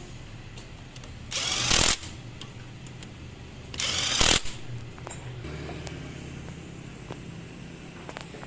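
Two short bursts from a workshop pneumatic air tool, each about half a second long and loudest at its end, the second about two and a half seconds after the first, over a steady low hum.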